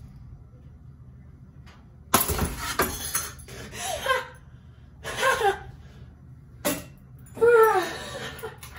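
A sudden loud crash about two seconds in, lasting about a second, as the ceiling fan is smashed. It is followed by a few short voice sounds that fall in pitch.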